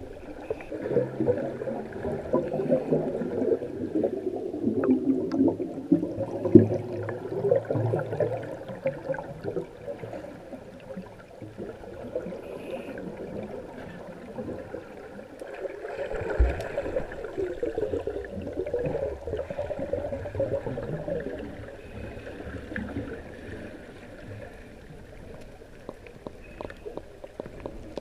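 Water swishing and bubbling heard from underwater, muffled and irregular, as a snorkeler swims and moves the camera, with a dull knock about six seconds in and another around the middle.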